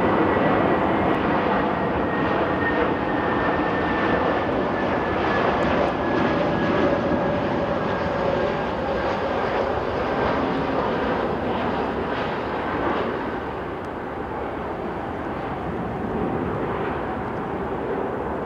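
Jet noise from a Boeing 767-300ER's General Electric CF6 turbofan engines: a steady, broad roar with a thin high whine that slowly falls in pitch over the first several seconds. The roar eases off somewhat later on.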